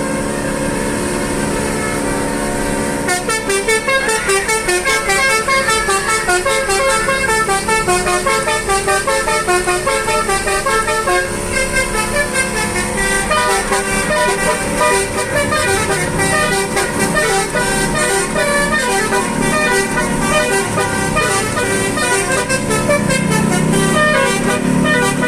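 Basuri 'telolet' multi-tone air horn playing a tune: several horn tones held together at first, then from about three seconds in a quick run of changing notes.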